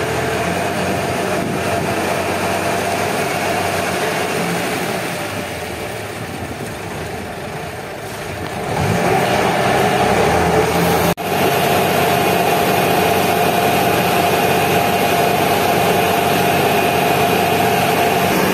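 Boat engine running steadily at low power, easing off a little, then picking up speed about nine seconds in and running louder and steadily from there. The sound drops out for an instant shortly after it speeds up.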